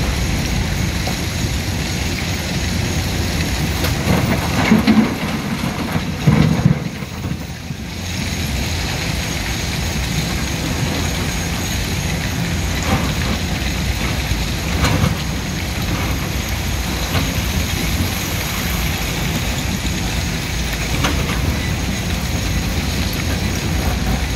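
Komatsu PC210LC hydraulic excavator's diesel engine running under load while the bucket digs into broken stone, with scattered knocks and rattles of rock against the bucket and the pile.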